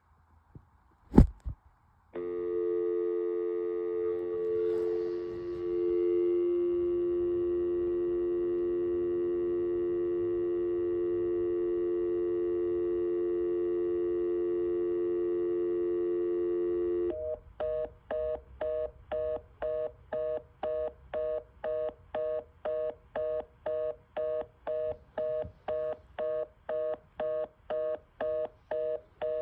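A telephone line clicks off-hook, then gives a steady North American dial tone for about fifteen seconds. The dial tone then changes to a fast busy (reorder) tone that beeps about twice a second, the signal that the line has timed out.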